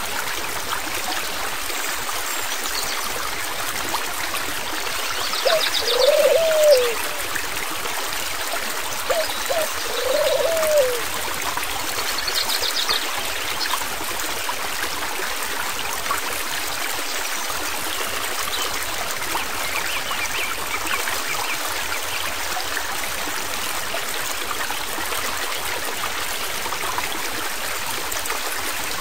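Steady rushing and trickling of a flowing stream. Twice, about six and ten seconds in, a pair of short pitched calls that rise and fall stands out above the water.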